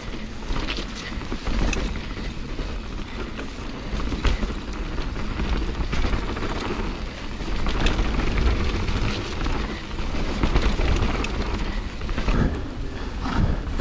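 Mountain bike descending a wet, muddy trail, heard from a mounted action camera: continuous rushing tyre and wind noise over a low rumble, with frequent clicks and rattles from the bike over roots and rough ground.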